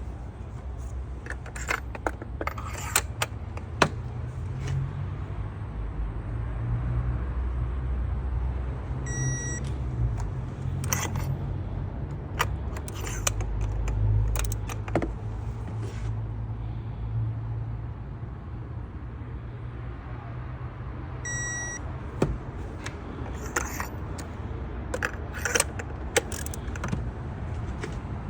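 A steady low engine rumble with scattered bursts of metallic clicks and jingles, and a short electronic beep about every twelve seconds.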